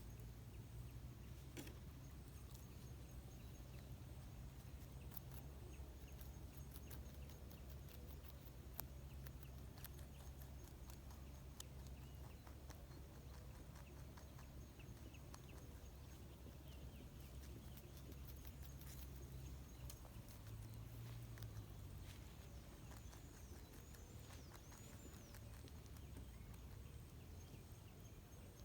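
Near silence: a faint steady low hum with scattered light clicks, and a few faint high chirps in the last third.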